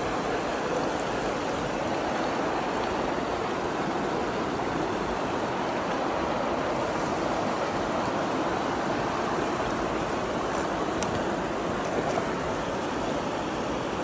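Steady rush of flowing river water, an even hiss at constant level.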